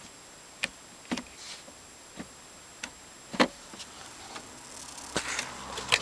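Clicks from a BMW X5's electronic joystick gear selector being nudged by hand, about eight separate clicks at irregular intervals, the loudest about halfway through.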